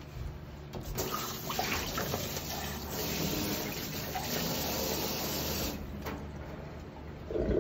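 Kitchen tap running into a stainless steel sink, turned on about a second in and shut off nearly five seconds later. A brief knock near the end.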